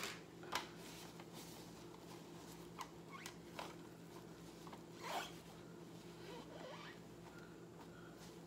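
Balloon being wiped off by hand: a few scattered short rubbery squeaks and rubs, some rising in pitch, the loudest about five seconds in.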